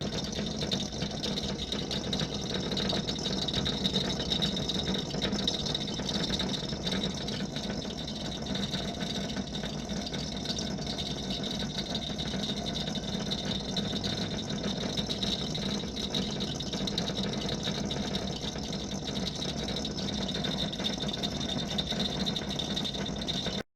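Household refrigerator compressor running with a loud, steady mechanical noise. A technician put the noise down to a part inside the compressor that shifted when the fridge was moved while still hot, right after being unplugged.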